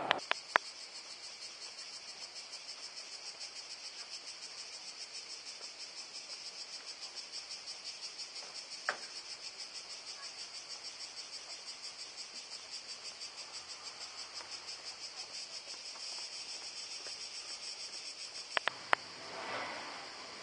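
Cicadas singing steadily in a high, fast-pulsing buzz. A few sharp clicks cut in just after the start, about nine seconds in, and twice near the end.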